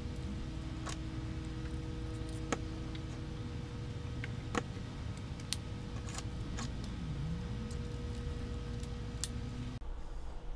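A handful of scattered sharp clicks and taps as the antennas and ring-shaped antenna brace are fitted onto an outdoor Wi-Fi access point, over a steady low hum.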